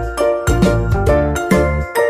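Background music: a light, tinkling melody over a bass line, with a steady beat.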